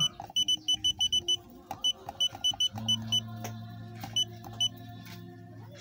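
Handheld automotive diagnostic scanner beeping at each key press as its menus are scrolled. A quick run of about eight short high beeps comes in the first second and a half, then scattered single beeps, over a steady low hum.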